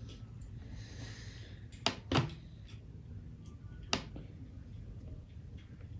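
Pen and plastic ruler at work on a notebook page: a brief faint scratch of the pen drawing a line, then a few light, sharp taps and clicks as the ruler and set square are shifted on the paper, over a low room hum.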